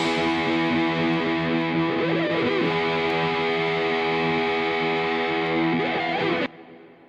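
Background music: a distorted guitar chord held steady, cutting off sharply about six and a half seconds in and dying away in a short fading tail.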